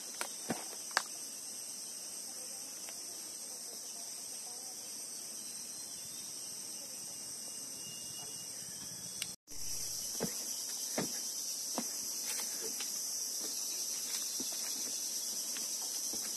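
Steady high-pitched chorus of insects, with a few faint clicks scattered through it and a brief break about halfway through.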